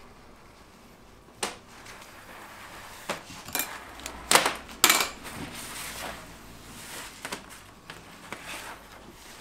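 Scattered clinks and knocks of hard candy and tools being handled on a work surface, with two loud clacks about four and five seconds in.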